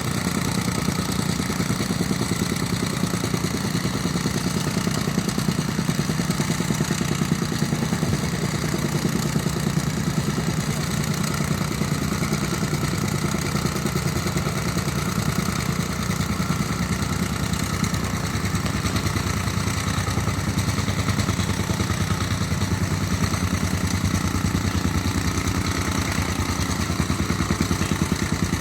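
An engine running steadily at a constant speed, with an even, fast pulse and a low hum that never changes.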